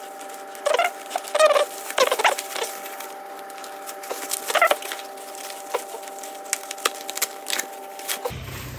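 Bubble wrap being cut open and pulled apart by hand: crackling and crinkling plastic with several short squeaks as the wrap is rubbed and stretched, the loudest about a second in, near two seconds, and again about four and a half seconds in.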